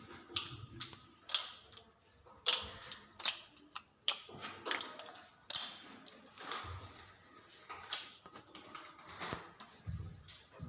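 Sharp knocks and clicks at an uneven pace, about one or two a second, some louder than others.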